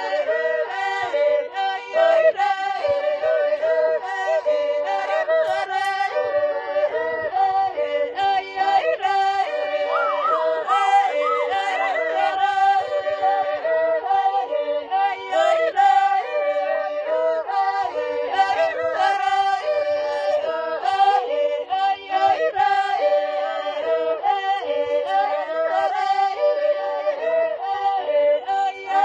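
A group of voices singing together in harmony, several sung lines sounding at once at a steady level.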